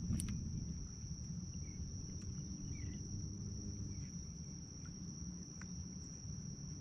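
Steady high-pitched insect trill, with low wind rumble on the microphone underneath and a few faint clicks.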